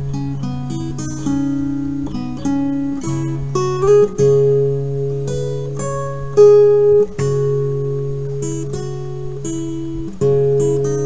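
Instrumental background music: plucked guitar-like notes pick out a slow melody over held low bass notes, with a few louder plucked accents.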